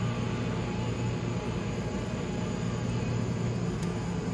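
Air-moving machinery, such as a fan or blower, running with a steady low hum and an even rush of air.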